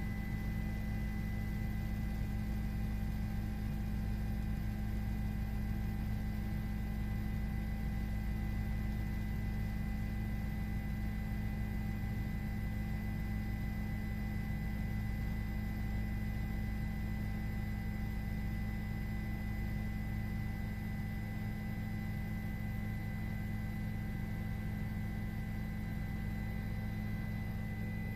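Steady, unchanging low hum with a few faint constant high tones over it.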